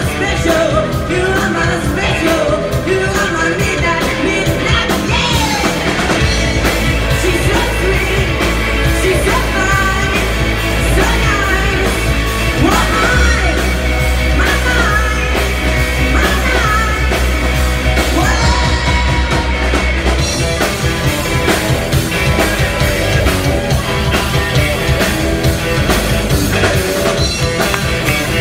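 Live rock band playing: distorted electric guitars, bass guitar and drum kit, with a lead singer singing over them.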